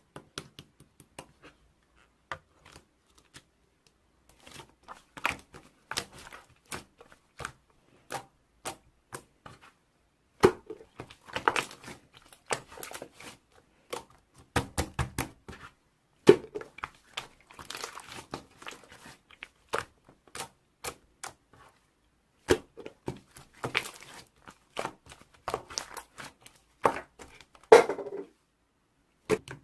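Slime being squished and stretched by hand: irregular sharp crackling pops and clicks, sparse at first, then in denser, louder clusters from about a third of the way in.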